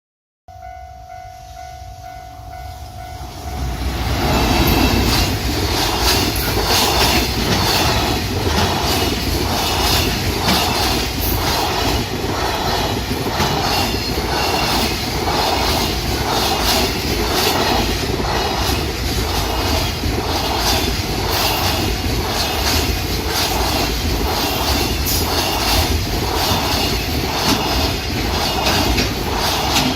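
A train's horn sounds a held note, then a train passes close by at speed. Its wheels clatter over the rail joints in a steady, even rhythm that keeps on without a break.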